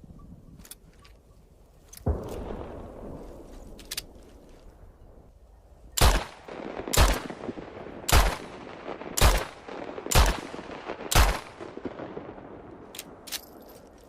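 Spanish Ona revolver firing six shots about a second apart, each trailing off into an echo. A smaller report comes about two seconds in, and light metallic clicks come before and after the shots.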